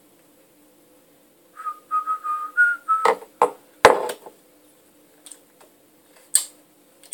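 A person whistling four or five short notes, the last a little higher, followed by three loud, sharp bursts of noise and one more near the end.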